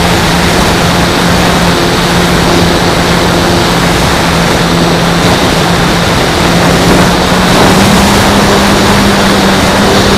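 A model plane's motor and propeller running steadily, heard from an onboard camera, with heavy wind rush over the microphone. About seven seconds in, the hum rises slightly in pitch and gets louder as the plane climbs.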